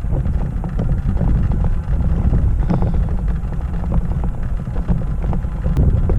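Wind buffeting the microphone with a steady low rumble, under a run of light, irregular clicks and knocks.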